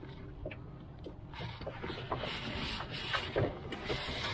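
Small irregular clicks and rustles of hands handling fishing line and a hook, over a steady low rumble.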